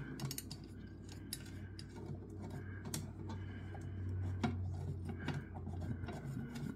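Small metal screws being threaded by hand into the metal case of a Jefferson mystery clock: light, scattered metallic clicks and scrapes.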